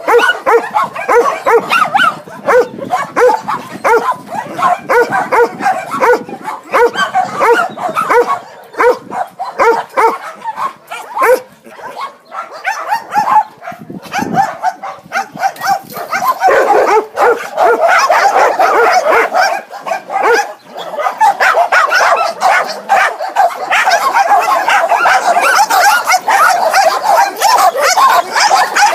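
Many dogs barking and yelping together. Separate, evenly repeated barks at first, then from about halfway through a dense, nonstop din of overlapping barks.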